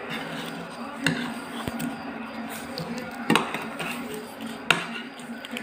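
A few sharp knocks and clatters as syrup-soaked galash triangles are lifted from a metal baking tray and set down on a china plate. Three strikes stand out: about a second in, a little past three seconds, and near the end.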